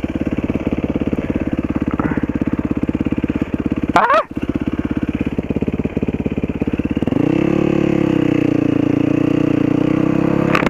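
Single-cylinder four-stroke dirt bike engine heard while riding, chugging at low revs with distinct firing pulses; about seven seconds in the revs rise and hold steady as the bike pulls. A short, sharp sound cuts in briefly about four seconds in.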